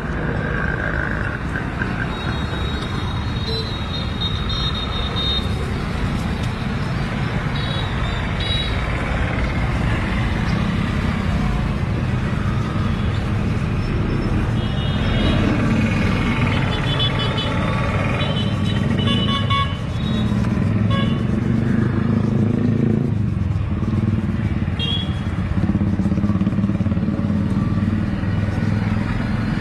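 Busy street traffic: motor vehicles and motorbikes running steadily, with short horn toots a few seconds in and again in the middle.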